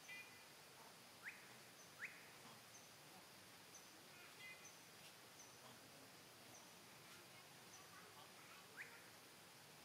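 Faint bird chirps over a quiet background: a few quick upward-sweeping chirps about a second in, around two seconds and near the end, some short clustered notes, and faint high ticks every second or so.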